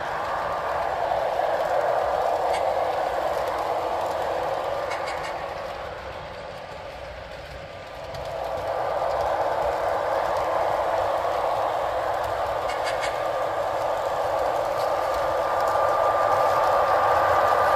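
Sound-equipped HO-scale Atlas GE U28CG model diesel locomotives playing recorded diesel engine sound from Soundtraxx Tsunami2 decoders through small onboard Scale Sound Systems speakers, so the sound sits in the midrange with little low bass. It runs steadily, dips for a couple of seconds around the middle as the lead unit passes behind scenery, then comes back up.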